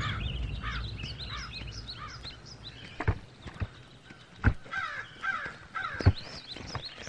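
Outdoor bird ambience: crows cawing and other birds calling in short repeated chirps. Three sharp taps come at about three, four and a half and six seconds in. The tail of background music dies away just at the start.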